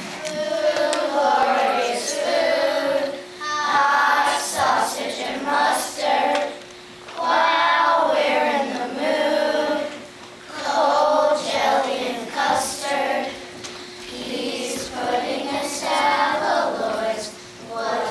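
Children's chorus singing together in phrases of a few seconds, with short breaks between them and a faint steady hum underneath.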